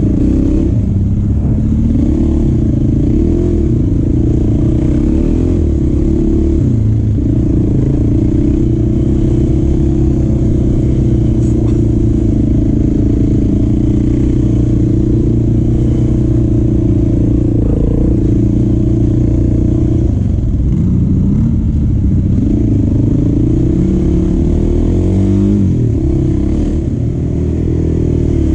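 Motorcycle engine running steadily under way, loud and low. Its pitch drops and climbs again twice in the later part, as the revs change.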